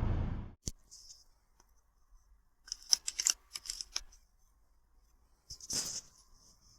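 A steady background noise cuts off about half a second in, followed by scattered faint clicks and short rustles, with clusters about three seconds and six seconds in.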